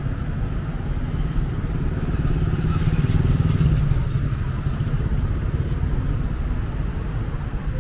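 City road traffic: cars and motorcycles passing close by with a steady engine rumble and tyre noise, growing louder about three seconds in as a vehicle goes past.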